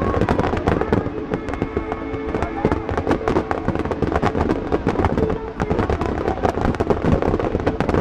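Fireworks display: many shells and rapid-fire barrages bursting over the water in quick, overlapping bangs and cracks with no break.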